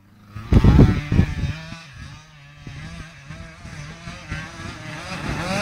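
KTM motocross bike's engine revving up and down as it is ridden around the dirt track, its pitch wavering with the throttle and growing louder toward the end. A few loud low thumps on the microphone about half a second to a second in.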